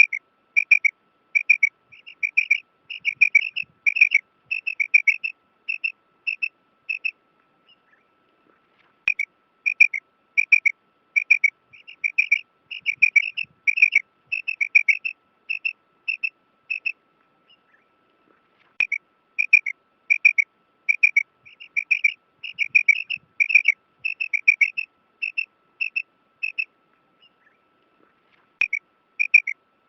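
Female quail calling: a steady run of short, high, repeated call notes, about two a second and some in quick pairs, in three bouts with a pause of about two seconds between each. A faint steady tone sits beneath the calls.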